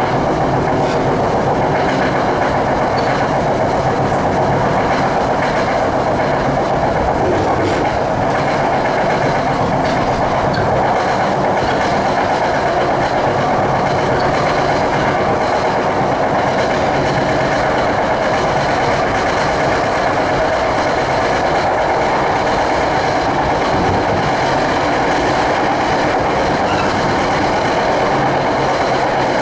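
A passenger train running at speed, heard from on board: a steady rumble of wheels on the rails, with scattered light clicks over the track.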